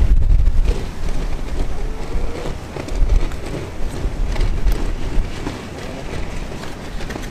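Strong gusty wind buffeting the microphone, a low rumble that rises and falls with the gusts, strongest at the start and again about three seconds in.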